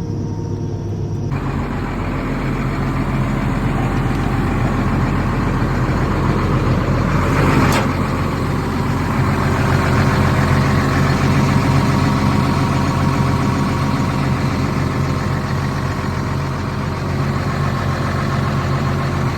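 Doosan DX300LCA excavator's diesel engine running steadily with the hydraulics working; the sound fills out about a second in as the hydraulic load comes on, with a brief sharp hiss-like sound about eight seconds in.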